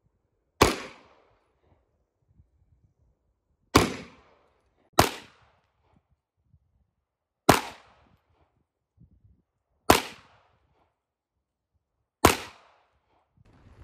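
Six pistol shots fired one at a time, one to three seconds apart, each a sharp crack with a short echoing tail.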